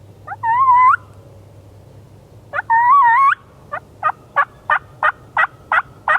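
Turkey calling: two drawn-out calls with a wavering pitch, then a run of eight short, evenly spaced yelps at about three a second.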